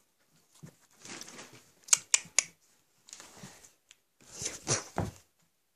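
Rustling and crinkling of a plastic bag close to a phone's microphone, in several short stretches, with three sharp clicks about two seconds in.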